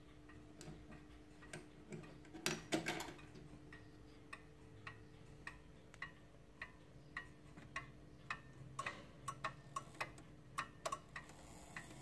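Antique German pendulum wall clock ticking quietly and evenly, a little under two ticks a second, in the last seconds before it strikes the hour. A few louder, irregular clicks come about two and a half seconds in, and a denser run of clicks near the end.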